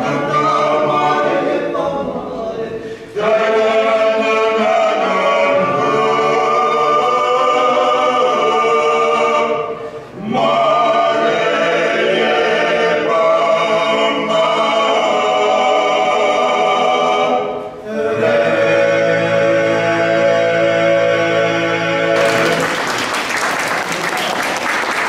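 Klapa, a male vocal group, singing a traditional Dalmatian song a cappella in close harmony. Each sung phrase is held long, with short breaths between phrases about three, ten and eighteen seconds in. About three seconds before the end, applause breaks out over the final chord.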